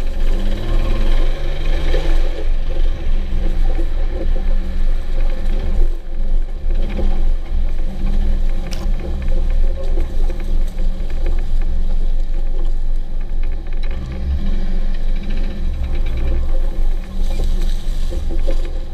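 1997 Jeep TJ's 4.0-litre straight-six engine running under way with a heavy low rumble, its pitch rising and falling with the throttle; the owner suspects a knock from the engine or the transmission. A single sharp click about nine seconds in.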